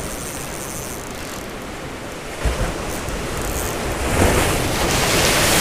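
Sea waves washing onto the shore, with a louder wave surging in and building from about halfway through. Wind buffets the microphone with low rumbles, once about two and a half seconds in.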